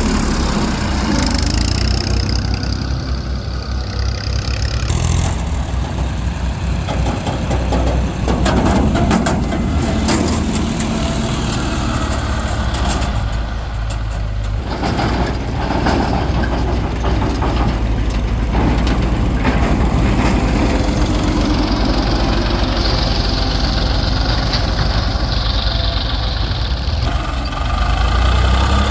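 Heavy diesel engine running steadily, its note shifting now and then as the load changes.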